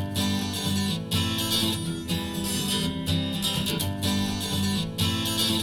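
Acoustic guitar strumming a steady rhythmic intro to an acoustic pop song, starting abruptly at the outset, before any vocals come in.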